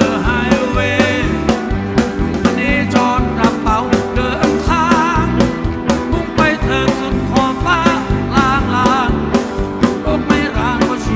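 Live rock band playing loud through a concert PA: a steady drum and bass beat under electric guitars, with a lead melody that wavers in pitch.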